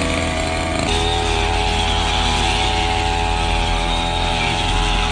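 Small petrol engine of a grass cutter running hard, its pitch stepping up about a second in and then holding steady at high speed.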